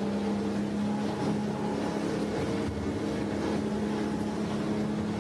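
A motorboat engine running at a steady speed: an even hum at one unchanging pitch.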